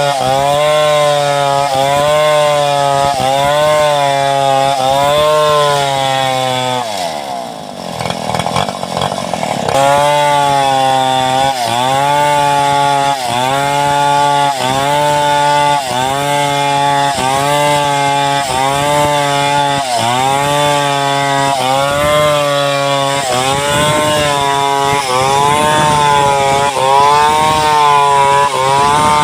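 Gasoline chainsaw running under load while ripping a log lengthwise into boards, its engine pitch rising and falling about once a second. About seven seconds in the engine slows and the pitch drops, then it revs back up about three seconds later.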